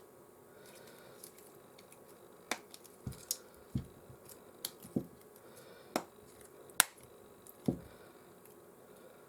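A run of about ten sharp clicks and soft taps as a replacement iPhone 13 screen is pressed and seated into the phone's frame.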